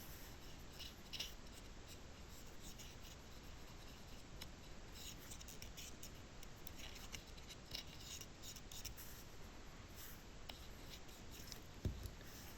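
Faint scratching and light ticking of a cotton bud rubbed over the dirty electrical contacts of a heater blend-door actuator, cleaning them with contact cleaner. A soft knock comes near the end.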